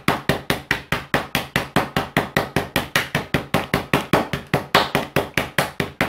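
Wooden rolling pin beating a wrapped block of firm margarine on a granite worktop: quick, even knocks, about six a second. The cold block is being pounded flat into a square slab for laminating puff pastry.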